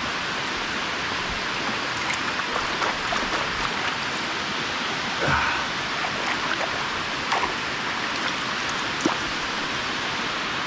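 Steady rushing of water pouring over a dam spillway, with a few faint clicks scattered through it.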